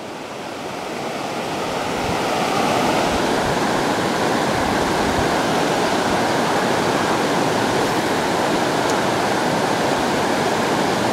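Steady rush of river water running over shallow rapids. It grows louder over the first couple of seconds, then holds even.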